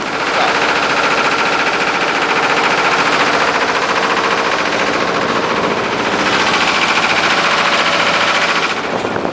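Boat engine running close to the microphone: a loud, fast, even pulsing that eases slightly around the middle and picks up again.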